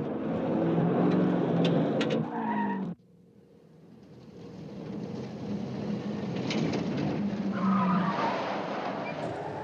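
Car engines running hard with tyres squealing as a sedan swerves through a bend. After a sudden cut, a pickup truck's engine grows steadily louder as the truck approaches.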